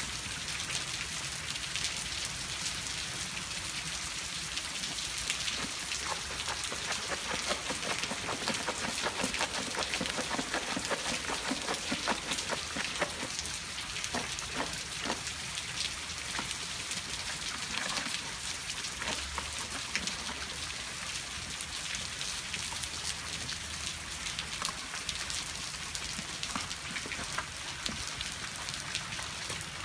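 Steady rain falling, a dense patter of drops with many fine ticks.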